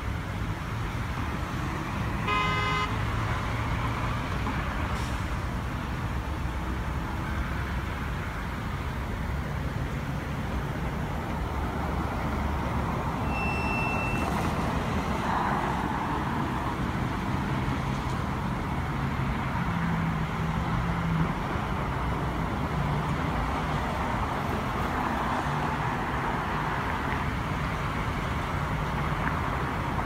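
Steady road traffic noise from cars passing on the road below. A car horn gives a short toot about two and a half seconds in.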